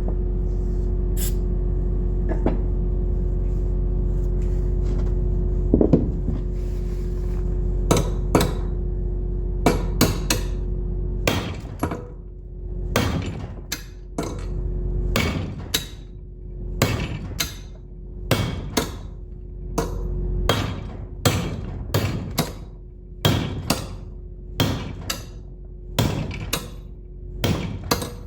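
Metal hammer striking a punch to drive the seized fan bearing shaft out of a John Deere 6081 thermostat housing: a few scattered blows, then from about halfway in a steady run of hard metallic blows, roughly three every two seconds. A faint steady hum runs underneath.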